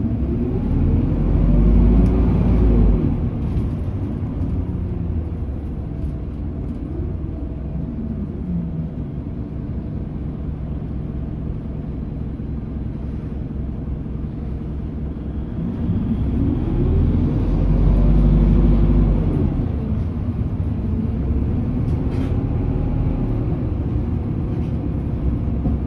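Isuzu Erga city bus running between stops, heard from inside the cabin: its four-cylinder turbo diesel pulls harder with a rising note about a second in and again about sixteen seconds in, falling back in between, over steady road noise.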